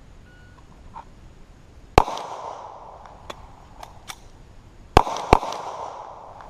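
9mm semi-automatic pistol firing Winchester steel-cased 115-grain rounds: one shot about two seconds in, then a quick pair about three seconds later. Each shot trails off in an echo, and a few faint clicks fall between the first shot and the pair.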